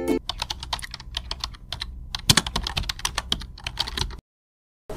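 Computer keyboard typing: a rapid, irregular run of keystroke clicks lasting about four seconds, then stopping abruptly.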